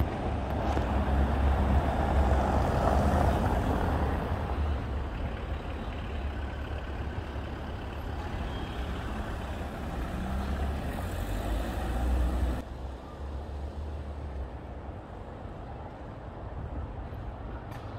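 Street traffic at a city intersection: motor vehicles running past with a low engine rumble, loudest in the first few seconds, then dropping suddenly about two-thirds of the way through.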